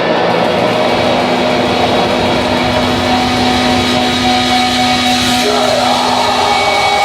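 Live drone-doom metal played loud through a PA: a dense wall of distorted guitar noise with long held notes, without drum hits.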